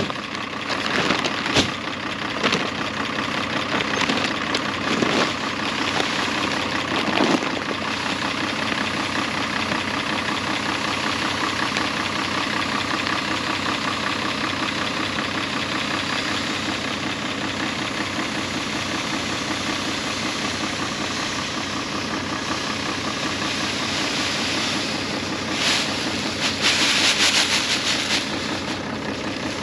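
Farm tractor's diesel engine running steadily. There are a few sharp knocks and clatters in the first several seconds, and a louder rushing hiss near the end.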